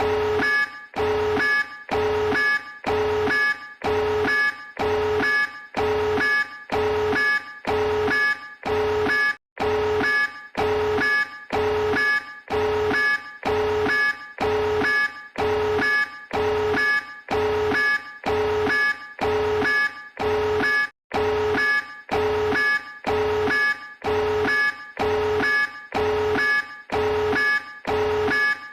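Emergency alert (EAS) alarm tone: a buzzing tone pulsing about four times every three seconds, each pulse holding one low and one higher steady pitch. Twice the sound drops out completely for a split second before the pulses carry on.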